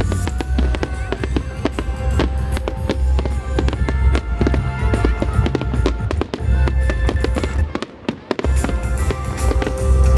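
Fireworks crackling and banging over music with a heavy bass line; both drop out briefly about eight seconds in.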